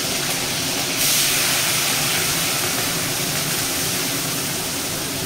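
Small freshwater shrimp sizzling as they fry in hot mustard oil in a kadai, a steady hiss that gets louder about a second in.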